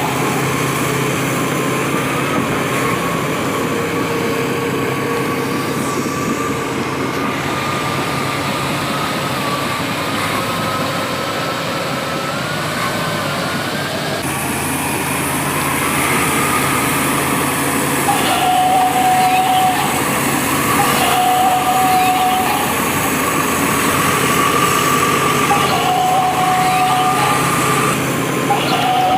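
Battery-powered toy construction vehicles running, a steady electric motor whine. In the second half there are repeated electronic beeps, each lasting about a second.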